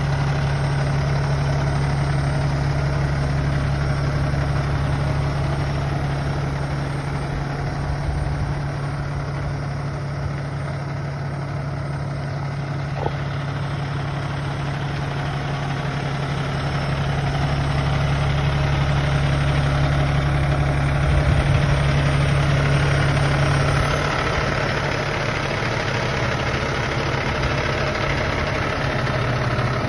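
Peterbilt 567 dump truck's diesel engine idling steadily with a low, even hum.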